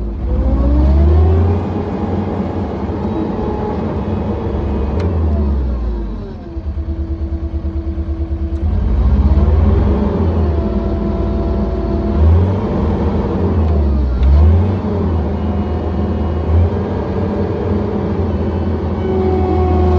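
John Deere 317 skid steer engine running and revving up and down again and again as the loader works, with a whine that rises and falls alongside it. It settles to a lower, steady, pulsing note for about two seconds a third of the way in, then revs up again.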